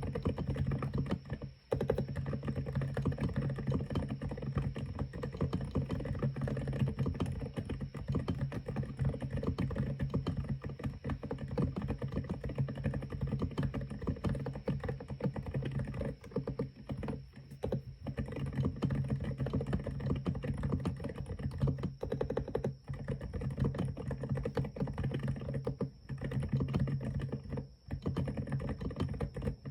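Continuous typing on a mechanical keyboard with Semokey low-noise 'icicle' tactile switches: a dense, fast run of soft keystrokes, broken by a few brief pauses.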